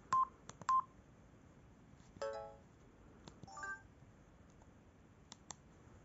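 Samsung SGH-E250 mobile phone key beeps: two short, loud, high beeps in the first second as keys are pressed. A couple of seconds in come brief bits of ringtone previews, each cut off after a fraction of a second, and two faint clicks follow near the end.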